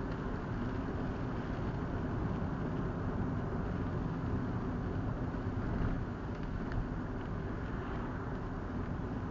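Steady road noise from inside a moving car: tyre and engine rumble, with a few faint ticks.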